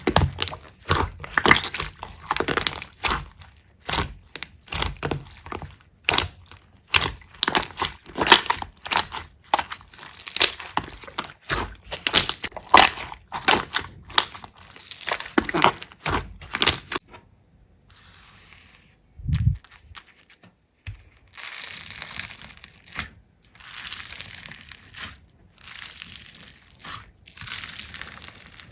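Slime being squeezed and pressed by hand, with rapid crackling and popping clicks, then softer squishing with a single dull thump about two-thirds of the way through.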